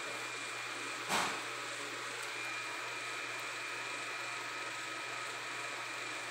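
Steady background hiss with a low hum, like a running fan, broken by one short knock about a second in; a faint high whine comes in a little after two seconds.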